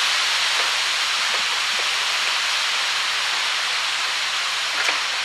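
A steady hiss throughout, with a few faint clicks and knocks as the plastic radiator fan assembly is wiggled into its clips on the radiator.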